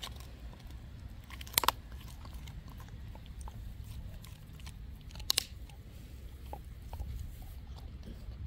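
A dog chewing a raw lamb shank, with small wet clicks of chewing and two loud sharp crunches, about a second and a half in and again about five seconds in.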